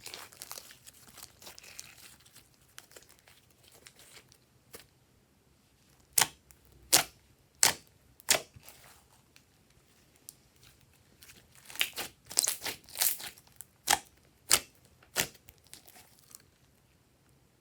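Hands pressing and stretching glossy slime, giving scattered sharp pops and clicks as air pockets burst, with a cluster of quick pops past the middle.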